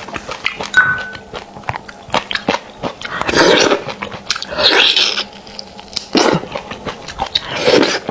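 Close-miked wet chewing of soft, saucy red-braised beef bone marrow: steady mouth clicks and smacks, with four louder slurping sucks in the second half.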